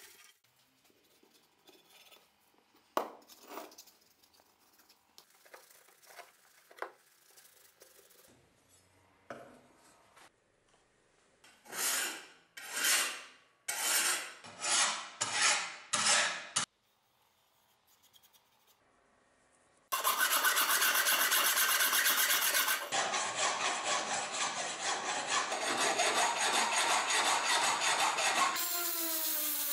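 Steel meat-axe blade being filed by hand: a few slow separate strokes, then fast continuous rasping strokes. Near the end an angle grinder starts and its whine climbs as it spins up.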